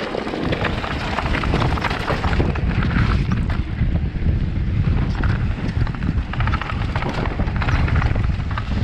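Wind buffeting the microphone while a mountain bike runs down a dirt trail, with the tyres crunching over the ground and a rapid, irregular clatter of the bike rattling over bumps and stones.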